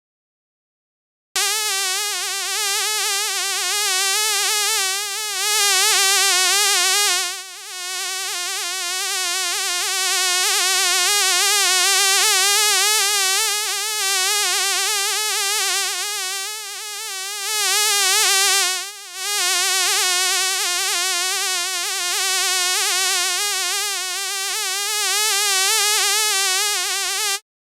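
A fly buzzing in flight: a steady buzzing drone whose pitch wobbles constantly and whose loudness swells and dips as it moves. It starts about a second in and cuts off suddenly just before the end.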